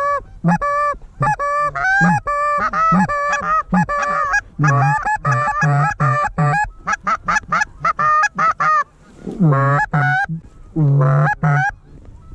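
Canada goose honks and clucks in a loud, rapid series, the calls breaking upward in pitch, with faster, shorter clucks around seven to eight seconds in and brief pauses near the end.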